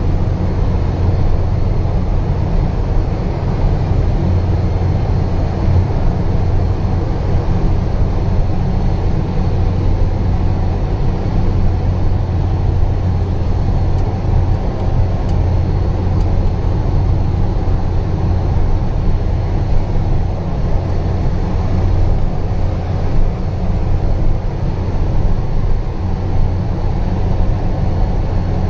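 Truck engine running steadily with a low, even drone, heard from inside the cab as the truck drives slowly over a rough dirt track.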